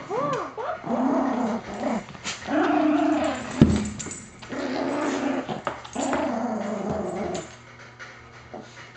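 Yorkshire terrier growling in about four long, steady growls while mouthing and tugging a plush Elmo toy, after a couple of short whining yips at the start. A sharp thump comes about three and a half seconds in, and the growling stops about seven and a half seconds in.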